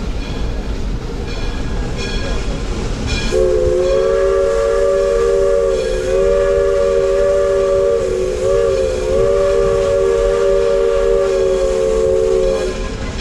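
Steam locomotive whistle blowing one long blast of about nine seconds, several notes sounding together as a chord, wavering briefly in pitch partway through. Underneath is the steady rumble of the moving train.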